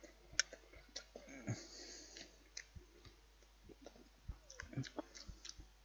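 Faint, irregular clicks and light scrapes of a knife and fork against a plate as a sausage is cut.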